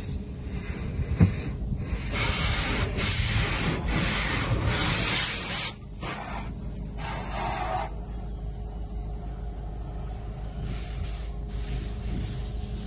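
A steady hissing noise over a low, even hum, louder for about four seconds from two seconds in, then dropping to a fainter hiss.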